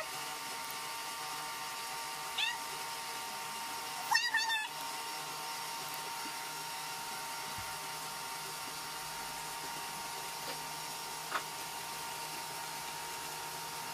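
A cat meowing: a short call about two and a half seconds in, then a louder, broken call about four seconds in. A steady faint hum and hiss lie underneath.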